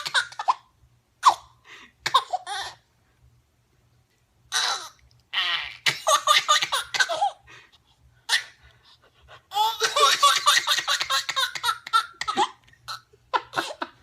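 Eight-month-old baby laughing uncontrollably in repeated bouts of rapid pulsed laughs with short pauses between them. The longest bout comes a little past halfway.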